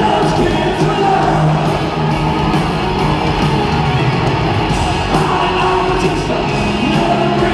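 Hard rock band playing live with electric guitar and singing, recorded from the audience in an arena.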